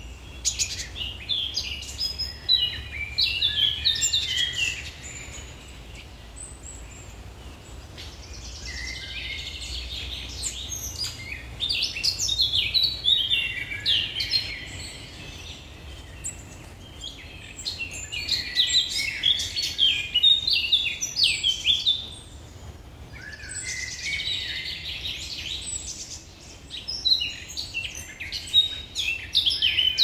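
Small songbirds chirping and twittering in quick runs of high notes, in four bouts separated by short lulls, over a steady low rumble.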